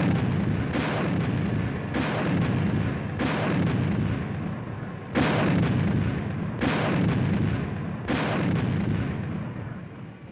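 Skysweeper 75 mm automatic anti-aircraft gun firing a string of rounds, about seven heavy shots roughly one to two seconds apart, each fading out slowly before the next.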